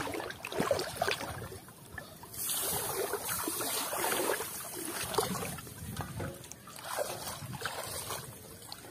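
Shallow water sloshing and splashing in irregular bursts as a person wades and moves their hands and a metal basin through it.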